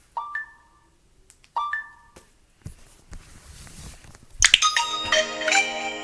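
Vivo phone notification tones: two short chimes about a second and a half apart, then a longer, busier multi-note melodic alert starting about four and a half seconds in.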